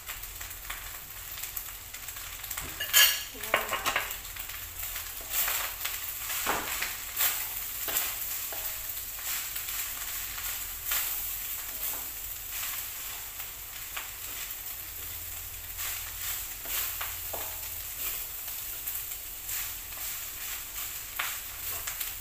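Food sizzling in a wok as it is stir-fried, with a wooden spatula scraping and knocking against the pan; the sharpest knock comes about three seconds in.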